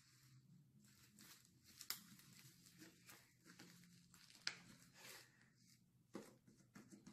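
Faint sticky crackling and squishing of fluffy shaving-cream slime being stretched and kneaded by hand, with a sharper click twice.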